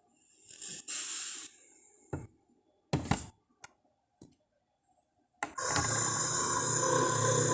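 Tarbosaurus sound effect: a soft breathy hiss and a few sharp clicks, then a loud, low, steady-pitched growl that starts about five and a half seconds in.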